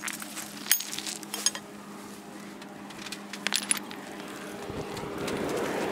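A handful of sharp clinks of stone being knocked against stone, with a short ringing after each, in the first four seconds. In the last second or two an engine sound builds up and grows louder.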